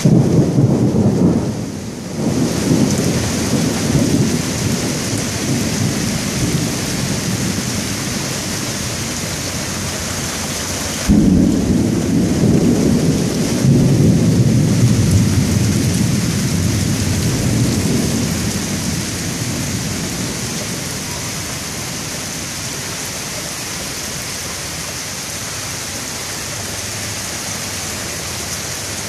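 Thunderstorm: heavy rain pouring steadily, with thunder rumbling in the first two seconds and again from a sudden crack about eleven seconds in, rolling on for several seconds before dying away.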